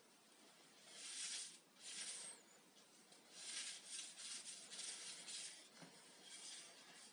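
Folded paper towel rubbing finishing oil into an end-grain wooden cutting board: a series of faint, uneven scratchy swishes, one per wiping stroke.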